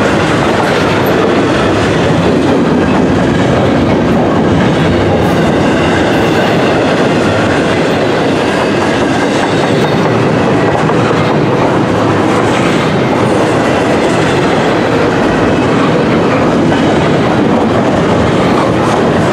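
Double-stack intermodal container cars rolling past close by: the steady, loud rumble and clatter of steel wheels on the rails.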